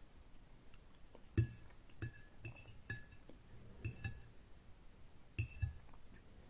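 Tableware clinking during a meal: about eight short ringing clinks, the loudest a little over a second in and again past five seconds.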